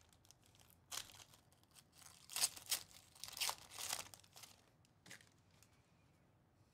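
Foil trading-card pack being torn open and crinkled in a few short bursts of ripping, the loudest from about two and a half to four seconds in.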